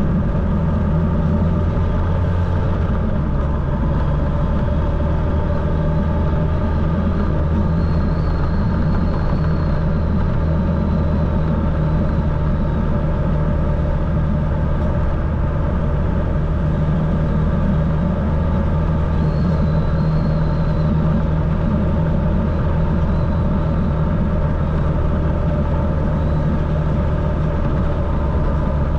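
Motorcycle engine running at a steady, unchanging speed, with a deep, even drone.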